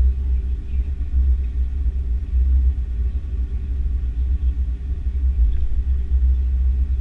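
Airbus A330-300 airliner's steady low rumble as it moves under its own power, with faint steady tones above the deep rumble.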